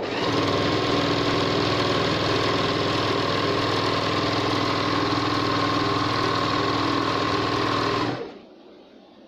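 Okurma 620-F three-thread overlock machine running at a steady speed, sewing an edge for about eight seconds, then stopping.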